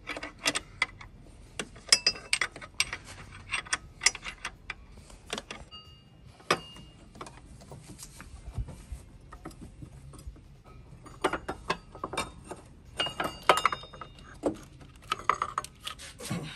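Sharp metallic clicks and clinks in irregular clusters, with a quieter stretch in the middle: a 15 mm wrench working the bolts of a serpentine belt tensioner, and the loosened tensioner knocking against the engine as it is worked free.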